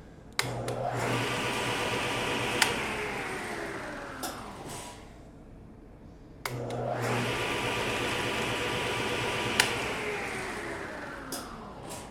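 Table saw motor switched on through a new paddle switch, spinning up to speed and running about two seconds. Then a sharp click as the switch is knocked off, and the motor and blade wind down. The same start, run, click and wind-down happens twice, showing the new switch works.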